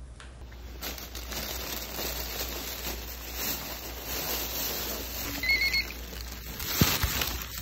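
Plastic trash bag rustling and handling noise as it is carried. A short run of electronic beeps comes about two-thirds of the way in, and a sharp thump near the end.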